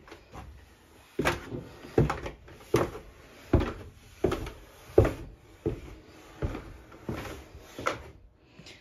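Footsteps going down wooden basement stairs: about ten even thumps, one every three quarters of a second or so.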